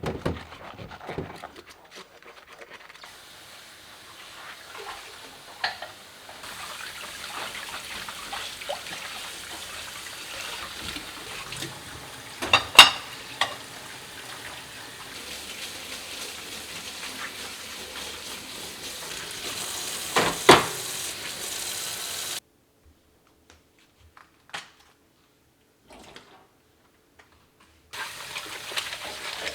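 Dishwashing at a kitchen sink: tap water running with dishes and utensils clinking, and a couple of louder clatters. The sound cuts out for several seconds near the end.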